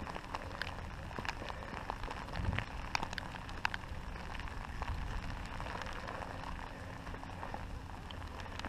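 Steady rain, a hiss with scattered sharp ticks of single drops striking close by.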